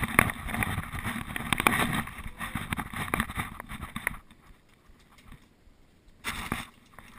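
Rubbing and knocking from a dog-worn GoPro Hero 2 in its housing as the dog moves about: a dense scraping rustle dotted with sharp clicks, dying away about four seconds in, then one short burst of rubbing near the end.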